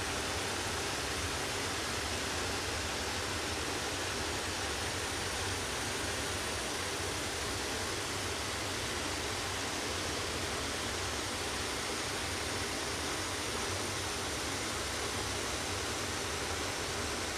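Steady rushing of small waves washing along a rocky shore, heard as an even hiss that does not change.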